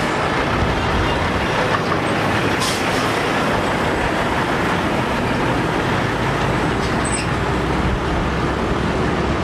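Highway traffic with heavy container semi-trucks driving past: a steady, dense rumble of truck engines and road noise.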